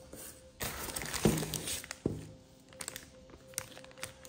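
Plastic bag wrapping rustling and crinkling as a pair of TV stand legs is handled and pulled from foam packaging, with a few light knocks.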